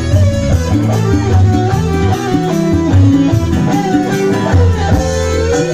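Live dangdut band playing an instrumental passage: a lead melody gliding over a steady bass and drum beat.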